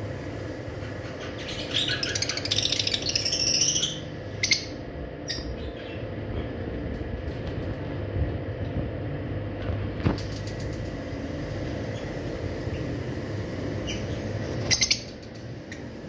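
Lovebirds chirping: a rapid high twittering burst about two seconds in, then a few short sharp chirps, and another short burst near the end.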